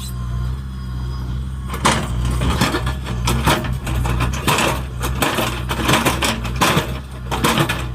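JCB 3DX backhoe loader's diesel engine running steadily, with a dense clatter of crunches and scrapes starting about two seconds in as the bucket works through the ground.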